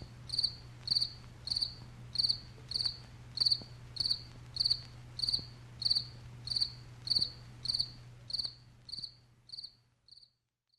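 Cricket chirping in an even rhythm, about three short trilled chirps every two seconds, fading away and stopping near the end.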